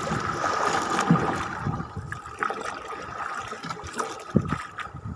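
Sea water sloshing and splashing against the hull of a small outrigger boat (bangka) in choppy water, with two sharp knocks, about a second in and near the end.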